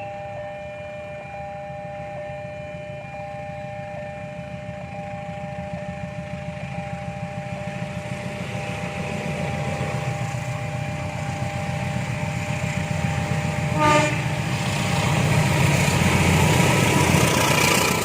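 A train approaching with a rumble that grows steadily louder, under a steady two-tone electronic warning signal pulsing at an even rate, typical of a level crossing alarm. About fourteen seconds in, the locomotive gives a short horn blast, and the train then passes loudly.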